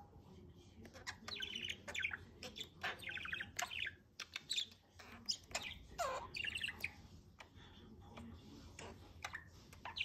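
Budgerigar chirping and warbling in quick chattering bursts, busiest in the first seven seconds and sparser near the end.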